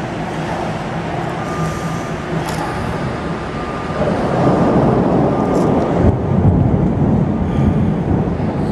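Steady rain with distant thunder: a low rumble swells up about four seconds in and keeps rolling.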